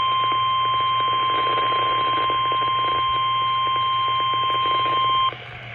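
NOAA Weather Radio warning alarm: a single steady, loud tone held for about five seconds over light radio hiss and hum, cutting off suddenly near the end. It signals that a warning broadcast follows, here a flash flood warning.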